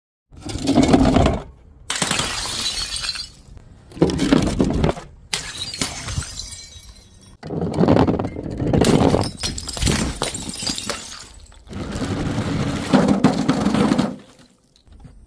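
Glass bottles shattering one after another, about six separate crashes of breaking glass, each starting and stopping abruptly.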